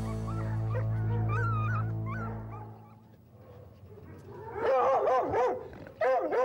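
Background music holding a steady low chord fades out about three seconds in. Then a pack of foxhounds whines and yelps in several eager bursts behind a kennel door.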